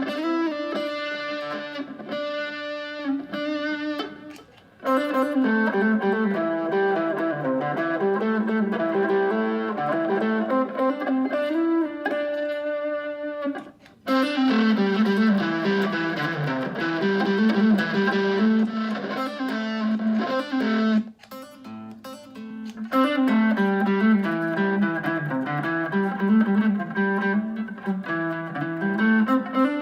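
Fender Stratocaster electric guitar playing a melody through effects, in phrases broken by short pauses about four, fourteen and twenty-one seconds in.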